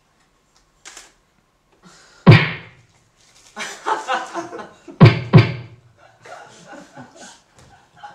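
A person's loud, abrupt vocal noises: sudden shouted bursts about two seconds in and twice in quick succession around five seconds, with lower broken vocal sounds between them.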